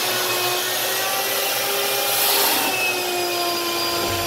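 Wet vacuum running steadily with a whining motor, sucking standing water off a flooded floor through its hose and nozzle; a brief louder rush of air and water about two seconds in.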